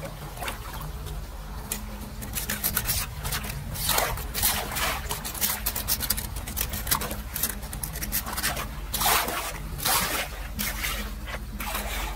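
Gloved hands and a hand tool splashing and scraping in shallow muddy floodwater, clearing debris from a clogged curb drain inlet, in irregular bursts, over a steady low rumble.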